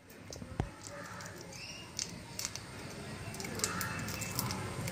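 Raw prawns being peeled by hand over a pot of water: soft wet squelches and many small clicks as the shells are pulled off.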